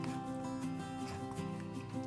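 Background music: held melodic notes over a steady light beat.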